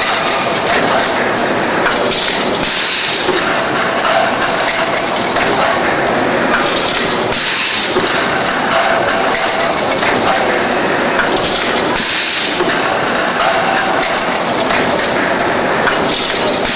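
Automatic packing machine for aerosol spray cans running: steady mechanical clatter of the mechanism and cans, with short hisses of compressed air from its pneumatic pusher cylinders every few seconds.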